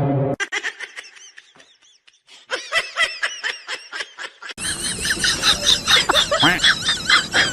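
Rapid, high-pitched chirping calls from birds, in short runs at first. About four and a half seconds in they give way to a loud, dense chorus of calls. A brief pitched tone cuts off in the first half-second.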